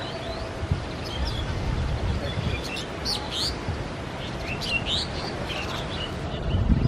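Small birds chirping and trilling repeatedly over a steady low rumble from a train running off into the distance.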